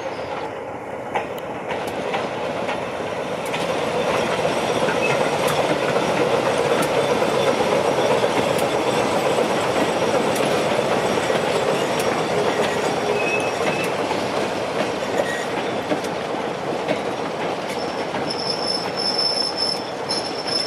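BR Class 25 diesel locomotive and diesel brake tender hauling a goods train past, loudest about eight seconds in, then the wooden goods wagons rolling by with sharp clicks over the rail joints. Near the end a high-pitched wheel squeal sets in.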